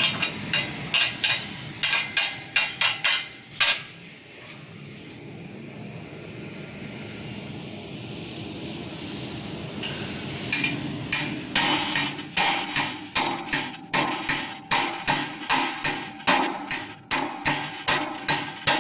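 Sharp metal clangs of hammer blows on welded steel shear studs, bending them over in a 90-degree bend test of the stud welds. The blows come about three a second for the first few seconds, stop for about six seconds, then resume at about two a second from about ten seconds in.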